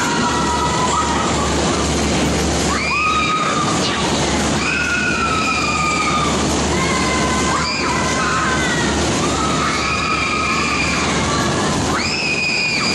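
Riders screaming on a spinning caterpillar-type fairground ride: long high-pitched screams, one after another every second or two. Under them runs the steady rush and rumble of the cars circling the track.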